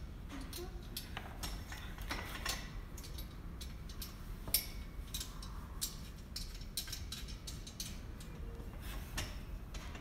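Scattered, irregular light clicks and clinks of a portable garage's steel frame tubing and its nuts and bolts being handled and fastened together, over a low steady background rumble.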